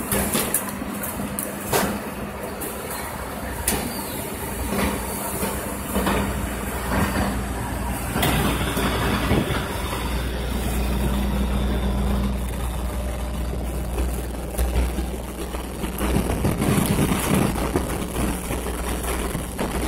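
Rear-loading garbage truck's diesel engine running steadily, with sharp metal clanks and knocks at intervals from the rear hopper and dumpster.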